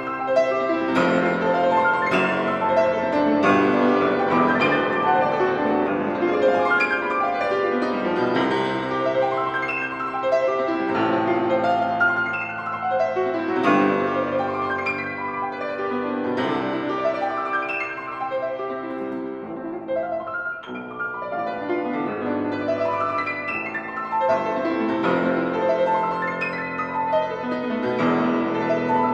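Piano music: a steady run of notes and chords.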